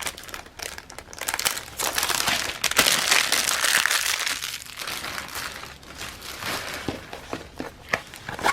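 Packaging of a diamond painting kit crinkling and rustling as it is handled and opened, busiest a couple of seconds in, with scattered small clicks.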